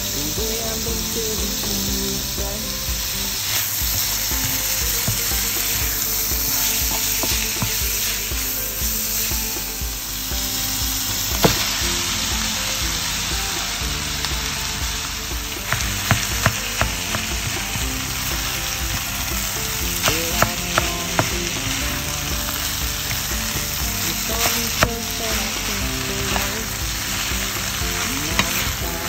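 Ground meat, carrots, peas and corn sizzling steadily in a hot pan, turned with a wooden spatula. From about halfway, cooked rice is stirred in, and the spatula's knocks and scrapes against the pan come as sharp clicks over the sizzle.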